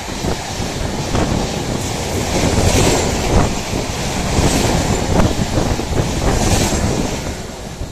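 LHB passenger coaches of a superfast express train rushing past at speed: a loud, continuous rush of wheel and air noise with sharp wheel clacks now and then, and wind buffeting the microphone.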